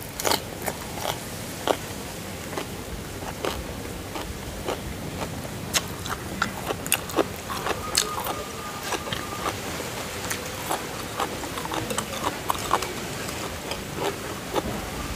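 Close-miked chewing of a mouthful of vegetables: many small crunches and wet mouth clicks at an irregular pace.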